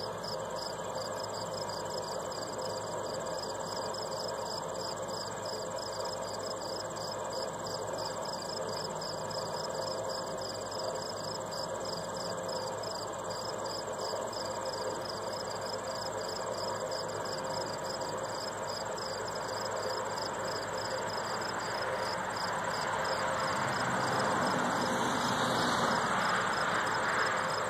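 Insects chirping in a steady rhythm of high pulses over a continuous high trill, typical of late-summer crickets or katydids. Near the end a broad rushing noise swells and then fades.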